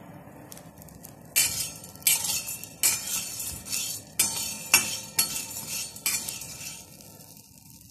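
Metal spatula stirring dry sago pearls in a steel pan, a run of about eight scraping strokes with the pearls rattling against the metal, starting about a second and a half in and trailing off near the end. The pearls are being dry-roasted on low heat and kept moving so they puff up without scorching.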